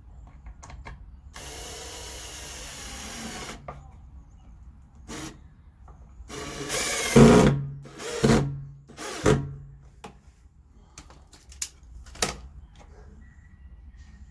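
Power drill running in short bursts: one steady run of about two seconds, then a louder rising burst and two shorter ones, with clicks and knocks in between.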